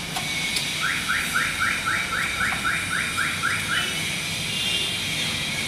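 An electronic alarm sounds a quick run of about eleven rising chirps, three to four a second, for about three seconds, then stops.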